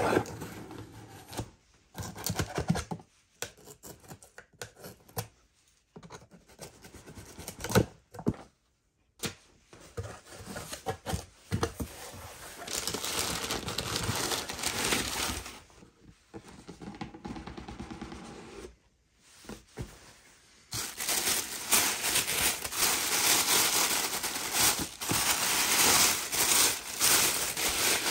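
A shoebox being unboxed: paper crinkling, crumpling and tearing, with cardboard handling noises, in short stretches broken by abrupt cuts. The rustling becomes denser and louder about two-thirds of the way through.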